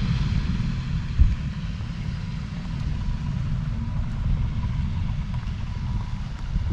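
Wind buffeting the microphone outdoors: a steady, gusting low rumble, with one louder bump about a second in.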